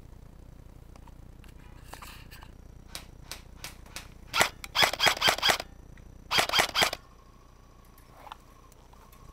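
Airsoft guns firing: a few single shots, then two short rapid-fire bursts about a second apart, the second ending sharply.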